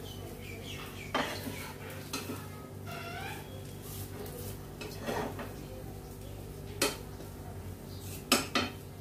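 Metal spatula scraping and tapping against a flat frying pan (tawa) while an egg omelette is lifted and turned, with a scattering of sharp clicks and the two loudest knocks in quick succession near the end. A steady low hum runs underneath.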